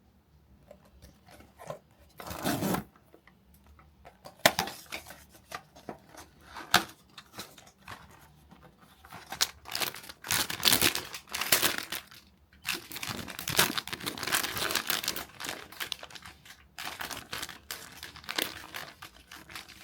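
Packaging torn open and crinkled by hand during an unboxing, in irregular tearing and rustling bursts that come thickest in the second half.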